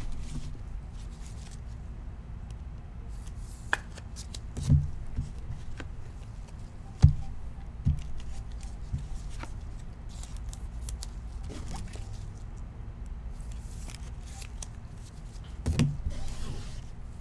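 Trading cards and hard plastic card holders being handled, giving scattered light clicks and taps over a steady low hum.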